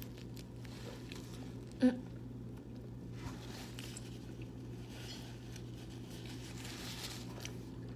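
Eating pizza close to the microphone: soft chewing and mouth sounds over a steady low hum, with one short, louder sound about two seconds in.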